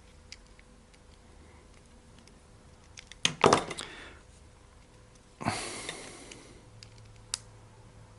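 Small clicks, knocks and handling noises of a screwdriver and small parts while a screw is tightened, with a cluster of sharper clicks about three and a half seconds in and a short hissing rustle about five and a half seconds in.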